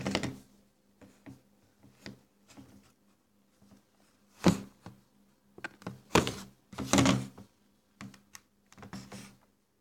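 Handling noise: irregular knocks, taps and rubbing, with the loudest thunks right at the start, about halfway through and around six to seven seconds in.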